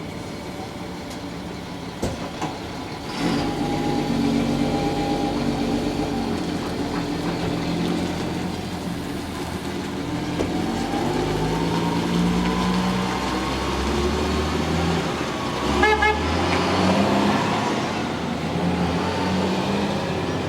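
An engine running, its pitch rising and falling as it is worked, with a short rapid rattle partway through.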